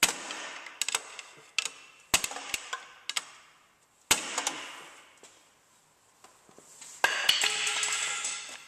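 Hammer striking a large screwdriver wedged at the inner CV joint to knock the drive axle out of the transaxle against its retaining C-clip. Sharp metal blows come about one a second, each with a short ring, then a louder stretch of clattering and ringing comes near the end.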